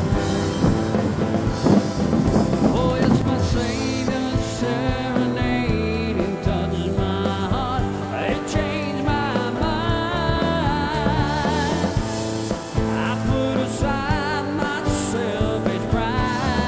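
Background music: a rock song with drums and a wavering lead line.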